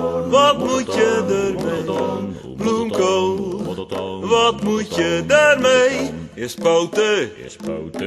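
A song with sung vocals over instrumental backing.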